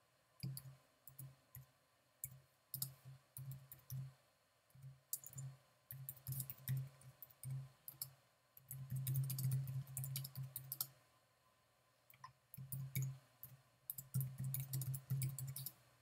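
Typing on a computer keyboard: quick, irregular key clicks, each with a soft thud, in runs broken by a couple of short pauses.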